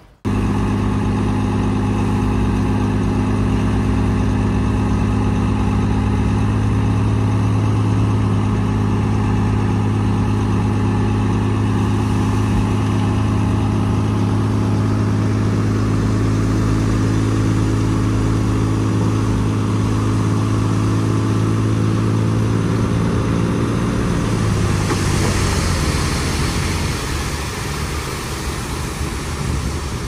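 Heavy diesel engine running loudly at a steady, constant speed, starting abruptly. About 24 seconds in, the engine note drops away and a hissing noise takes over.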